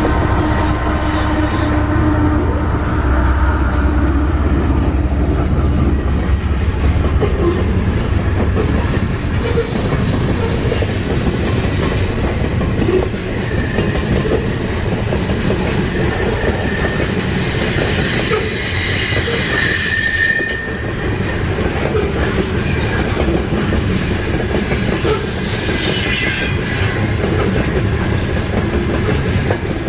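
Freight train passing close by. Mid-train diesel locomotives rumble past in the first few seconds, then covered hopper cars roll by with steady wheel-on-rail noise and intermittent high-pitched wheel squeal, which is strongest about two-thirds of the way through.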